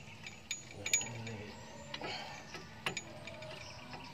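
A few sharp metallic clicks and clinks of hand tools and parts being handled during work on a van's wheel hub and stabilizer, the clearest about a second in and near the end.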